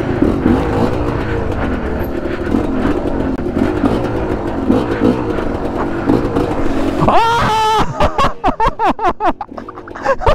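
MXF enduro dirt bike engine running at low, varying revs over rough trail. About seven seconds in it revs sharply once, then runs on in short, uneven blips of throttle.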